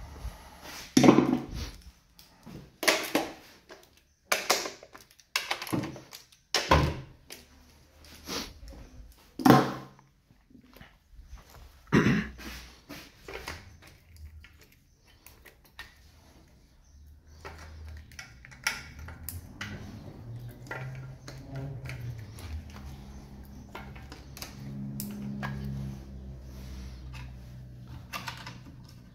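Hard knocks and clicks of parts being handled under a car's hood, one every second or two for about twelve seconds, then lighter scattered clicks over a low steady hum.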